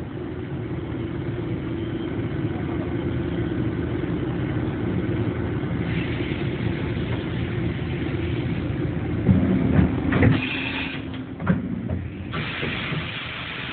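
Toyoda FA400 horizontal machining center running inside its enclosure: a steady mechanical hum with a hiss that grows louder about six seconds in and again near the end. A few sharp, loud bursts come between about nine and eleven seconds in.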